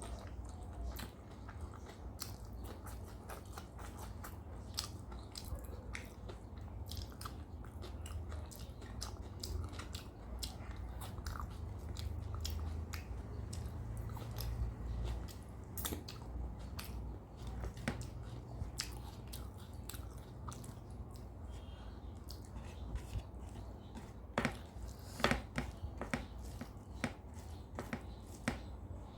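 Close-miked chewing and eating: a person chewing rice, dal, fish curry and fried vegetables, with frequent small wet mouth clicks and some crunching. A few louder clicks come near the end.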